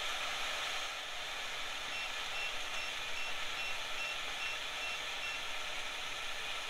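Cinder countertop grill searing steaks under its closed lid: a steady sizzling hiss, and from about two seconds in a run of about nine short high beeps from the control panel, about two and a half a second, as its timer switches from sear to long sear.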